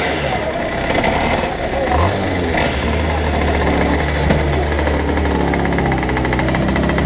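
TM two-stroke kart engine idling steadily while the kart stands still, with a brief small blip of revs about two seconds in.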